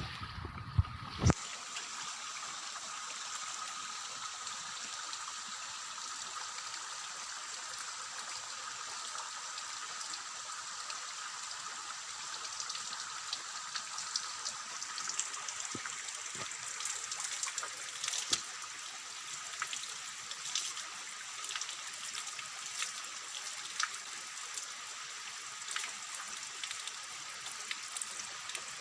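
Spring water trickling and splashing steadily in a forest pool, with small irregular splashes throughout. Two sharp knocks come about a second in.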